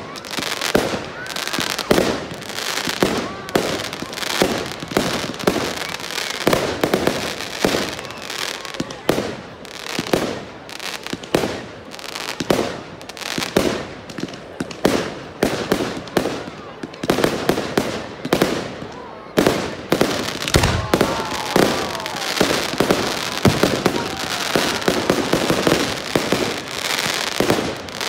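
Fireworks display: a rapid, continuous run of aerial shells bursting with sharp bangs, crackling between them and a few whistling glides.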